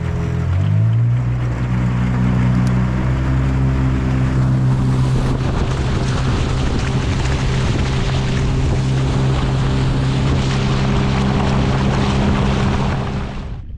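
Outboard motor of a small boat running under way, stepping up in revs about half a second in and then holding a steady pitch, with wind and water rushing past. The sound cuts off suddenly near the end.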